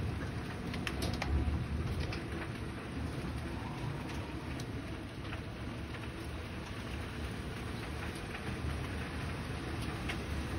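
Heavy rain pouring down in a storm, with wind buffeting the microphone. There are a few sharp ticks of drops striking in the first second or two.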